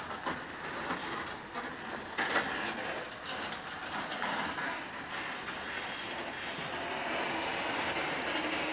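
Container semi-trailer truck moving slowly, its engine running under a steady noise with scattered rattles and knocks from the trailer; slightly louder near the end.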